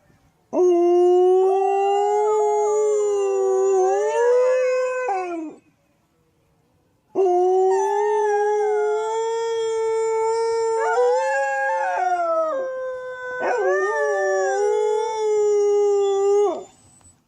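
Dog howling: two long howls. The first lasts about five seconds and rises in pitch near its end. The second runs about nine seconds, its pitch wavering and breaking twice before it falls away.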